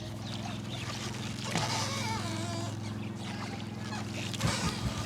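A boat's engine running with a steady low drone. Over it, wavering high calls come in about one and a half seconds in, and a run of short soft thumps starts near the end.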